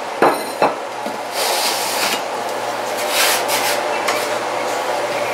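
A baked pizza slid off a wooden pizza peel onto a plate: two sharp knocks, then two spells of scraping as the crust drags across the wood, over a steady low hum.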